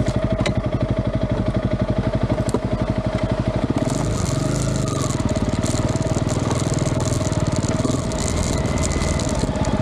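An engine running with a fast, even beat and a steady whine. About four seconds in the beat smooths out and more hiss comes in.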